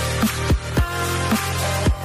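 Background electronic music with sustained bass notes and a steady, heavy drum beat.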